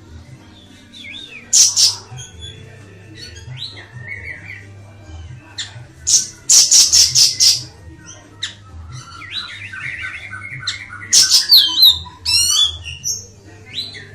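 Siri-siri songbird singing in separate phrases: harsh rapid chatters and quick falling whistled notes, with a low steady hum underneath.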